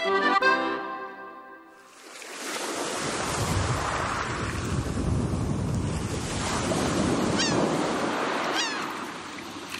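Accordion music trails off in the first second or two. Then a rushing river-water and surf sound effect swells up and holds, with two short, falling, high-pitched cries near the end.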